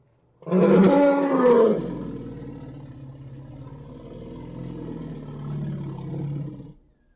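Elephant call sound effect: a loud pitched call with a bending pitch starts suddenly about half a second in, then trails into a long, lower rumbling growl that swells again near the end and cuts off.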